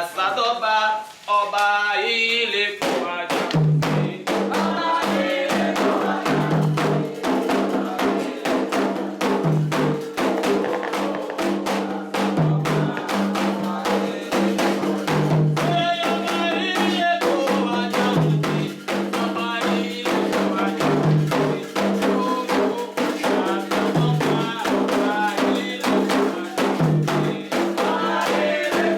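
Candomblé ritual music: a lone voice sings a short line, then about three seconds in hand drums and percussion come in fast and dense under continuing singing.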